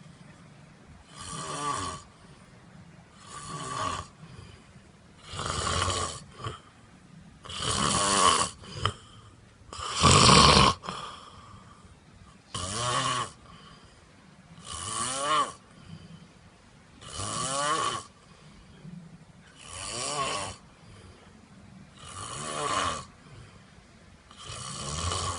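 A man snoring in his sleep, one snore on each breath in, roughly every two and a half seconds, about eleven in all. The loudest snore comes about ten seconds in.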